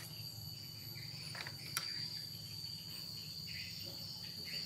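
Steady high-pitched insect trill in the background over a low hum, with a couple of faint clicks as wires and connectors are handled.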